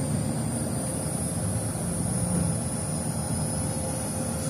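Steady low mechanical drone of running rooftop HVAC equipment, with a faint steady whine above it.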